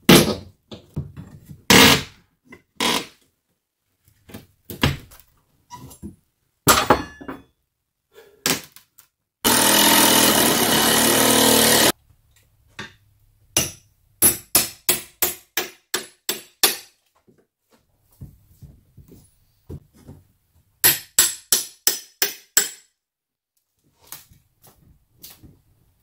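Steel pry bar and hammer working an old door frame loose from its long nails: sharp metal-on-metal strikes, some single and some in quick runs of about three a second. Just before the middle there is a harsh, steady scraping noise lasting a couple of seconds.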